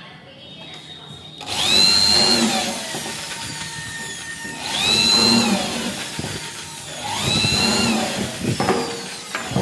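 Handheld electric drill run in three bursts of about one and a half seconds each, its motor whine rising as it spins up and falling as it winds down each time, with a few knocks near the end.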